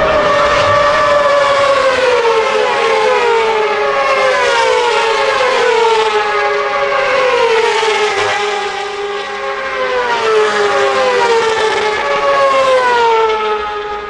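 Racing motorcycle engines running hard on the track, heard as a string of overlapping sweeps that keep falling in pitch, one after another, as the bikes go past and off down the circuit.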